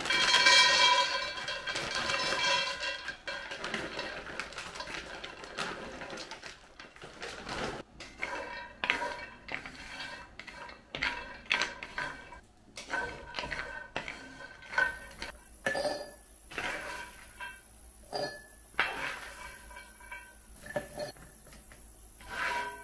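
Almonds poured into a Lodge cast iron skillet, rattling onto the bare iron for the first few seconds. Then almonds and walnuts are stirred in the dry skillet with a wooden spatula: irregular clicks and scrapes of nuts against the pan.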